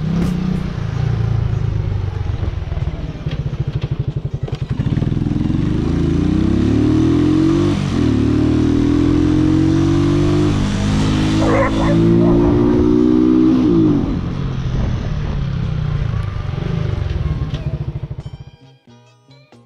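Italika FT125's single-cylinder 125 cc four-stroke engine running while riding. It pulls away rising in pitch through three gear changes, each upshift dropping the revs before they climb again, then cuts off sharply near the end.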